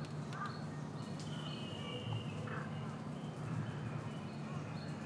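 Background ambience with a low steady rumble and a few short, faint bird-like chirps, mostly near the start.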